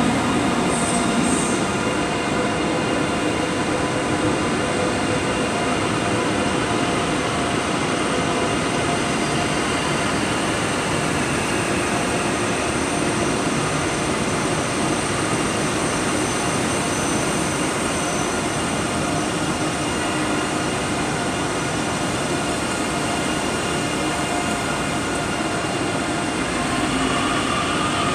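A double ICE 3 high-speed electric train rolling slowly out of the station: a steady rolling rumble of the wheels with several steady tones from its electric drive, and a light wheel squeal.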